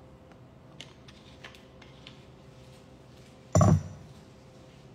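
A few faint light clicks, then a single loud thump about three and a half seconds in, over a low steady kitchen hum.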